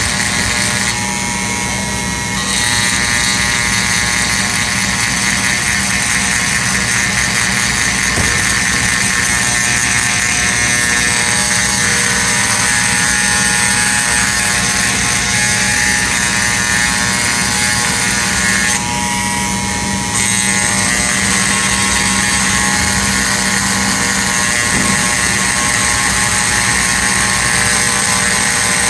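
Handheld rotary tool running steadily at high speed against the work, a high whine over a grinding hiss. The hiss eases twice for a second or so, about a second in and again past the halfway point.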